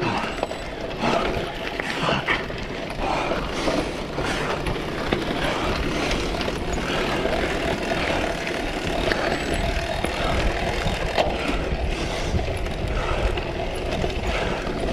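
A cyclocross bike ridden hard over rough ground: wind rushing on the microphone, with tyre noise and rattling clicks from the bike.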